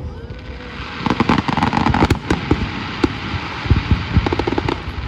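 Fireworks display: a hiss, then a dense run of rapid bangs and crackling pops from about a second in, with a few louder single bursts near the end.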